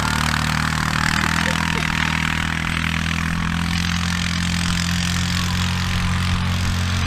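Four-wheeler (ATV) engine running steadily as it tows an inner tube across snow, with a steady hiss over it.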